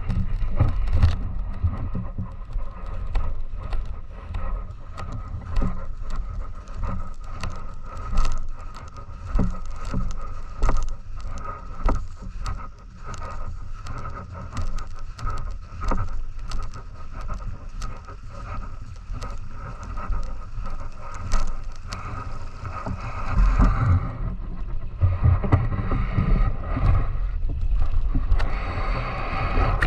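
Low, muffled rushing of river water, with many small clicks and knocks scattered through it.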